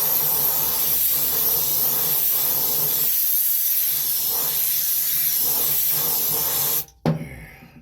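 Aerosol can of ether spraying in one long, continuous hiss onto diesel-fouled steel. It cuts off suddenly near the end.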